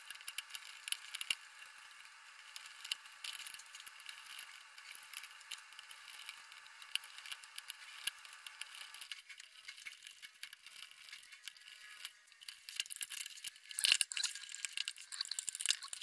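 Small metal clicks and rattles of screwdriver and loose metal parts as a rotary-dial telephone is dismantled by hand. The clicking comes and goes, and gets busier and louder over the last few seconds.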